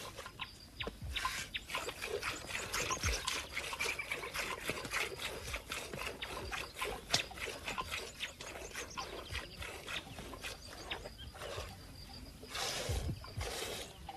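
A camel being milked by hand: quick, repeated jets of milk squirting into a bowl, each a short hissing stroke. There are a couple of broader rushes of noise near the end.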